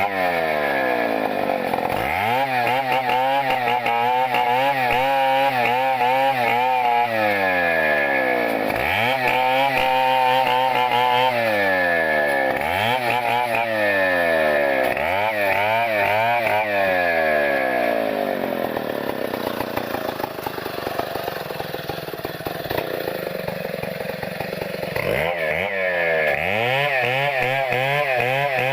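Chainsaw engine revving up again and again, held at high speed for a few seconds at a time and then dropping back. It runs lower for a few seconds in the latter part, then revs up again near the end.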